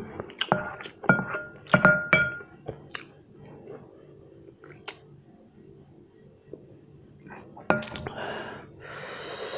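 A wooden spoon knocking against a glass bowl of noodles several times in the first couple of seconds and once more near the end, each knock followed by a short ringing note from the glass. Near the end comes a long breathy blow on the hot noodles.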